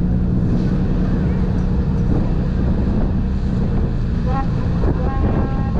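Passenger ferry's engine running with a steady low hum and rumble, with wind buffeting the microphone on the open deck. A short higher-pitched tone sounds twice near the end.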